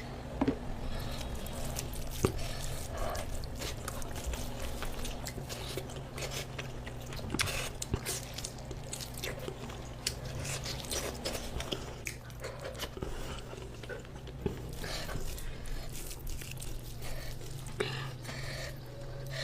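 A person chewing and biting food close to the microphone, with many small wet mouth clicks over a low steady hum.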